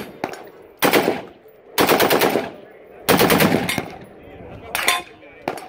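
FN SCAR-L (Mk16) 5.56 mm rifle firing a string of short full-automatic bursts, the two longest about half a second each, with shorter bursts before and after.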